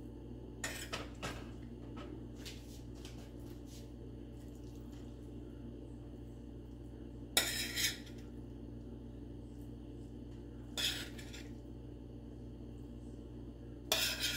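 A spoon scraping and clinking against a glass baking dish while spreading a ground-beef and vegetable filling, in four short spells: a few strokes about a second in, the loudest near the middle, another a few seconds later and one near the end.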